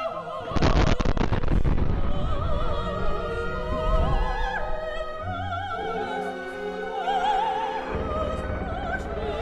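Operatic singing with wide vibrato over an orchestral backing. A loud blast with rumble cuts in about half a second in and fades over about a second.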